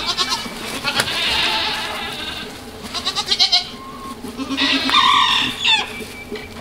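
Goats bleating: several drawn-out, wavering calls one after another.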